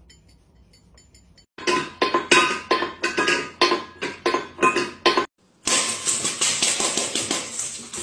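A rapid series of sharp clinking knocks with a ringing tone, about three strikes a second, as if a hard object is being struck over and over. It breaks off about five seconds in, and a steady rushing noise follows.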